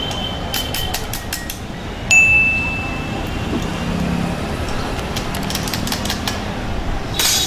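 Metal clinks and taps of steel pliers against motorcycle engine parts. One clink about two seconds in rings on briefly, there are several light taps, and a sharper ringing knock comes near the end.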